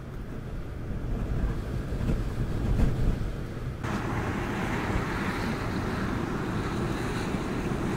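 Blizzard wind gusting, buffeting the microphone with a low rumble. About four seconds in it switches abruptly to a steadier, hissier rush of wind.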